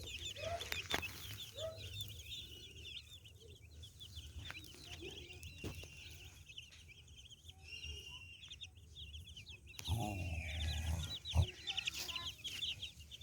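Chicks peeping in many quick high chirps, thick at first, thinning out through the middle and crowding in again near the end, with a few low clucks from the hen in the first two seconds and a sharp knock near the end.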